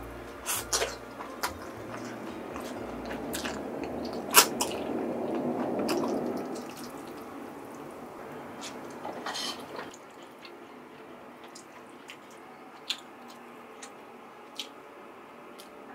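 Wet, sticky squelching of glass noodles and melted mozzarella being pulled up with chopsticks, with a scattering of sharp clicks of chopsticks against the plate, the loudest a little before halfway. The wet noise swells in the first half and thins out later.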